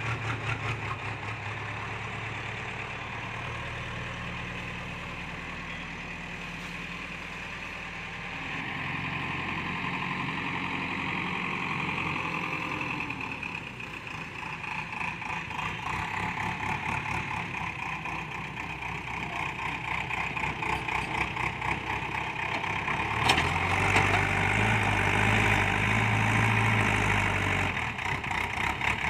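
A JCB backhoe loader's diesel engine runs steadily. About two-thirds of the way through it grows louder and deeper as it works harder, just after a single sharp clank.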